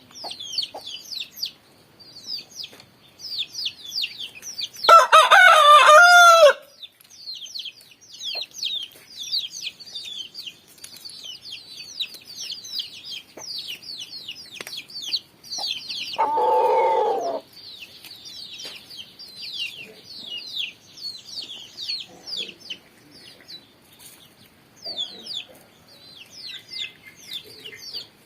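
Rooster crowing once, loudly, about five seconds in, over continual quick high chirping. A shorter, lower fowl call comes about sixteen seconds in.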